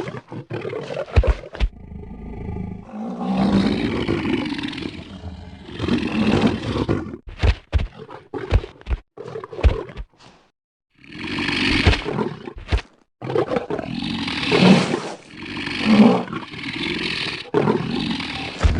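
Designed monster sound effect for a fictional crocodile-human hybrid creature: a series of long roars and growls with short pauses between them, and a few short sharp knocks in between, about halfway through.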